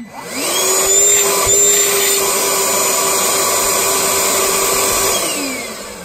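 Ryobi 18V ONE+ cordless wet/dry shop vacuum switched on: its motor spins up with a rising whine into a loud, steady run with a rushing of air, then is switched off about five seconds in and winds down with a falling whine.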